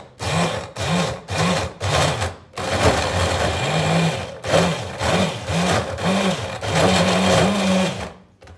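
Electric mini chopper, a hand-blender motor on a chopper bowl, pulsing as it chops basil, walnuts and olive oil into pesto. About four quick pulses, then longer runs, the motor's pitch rising and falling as it speeds up and slows. It stops shortly before the end.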